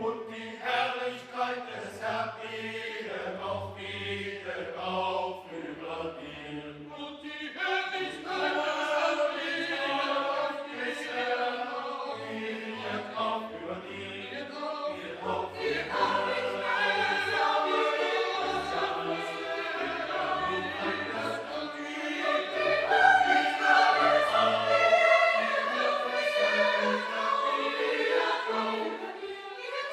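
A choir singing classical music in several voice parts over low sustained notes, swelling louder about halfway through.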